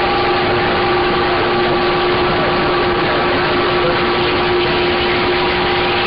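CB radio receiver on AM channel 6 putting out loud, steady static with several steady whistling tones over it: heterodynes from several stations keying up on top of one another, so that no speech gets through.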